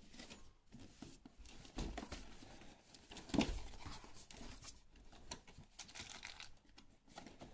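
Cardboard game box being opened by hand, with quiet scattered rustles and scrapes of the flaps and the clear plastic blister tray sliding and crinkling. A louder scrape comes about three and a half seconds in.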